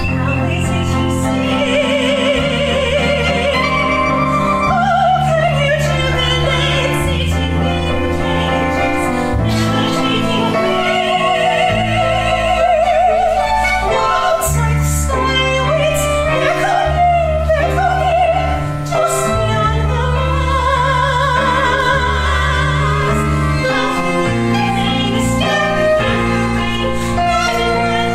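Female voice singing in an operatic style, long held notes with a wide vibrato, over an orchestral accompaniment.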